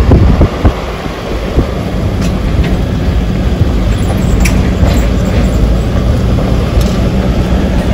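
Car driving along a road, heard from inside: a steady low rumble of road and wind noise, with a few louder thumps in the first two seconds.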